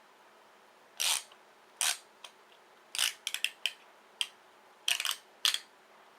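A run of about a dozen sharp, irregular clicks and snaps, some in quick clusters, from a pipe cutter and a freshly cut e-Go cartomizer's metal casing being worked by hand.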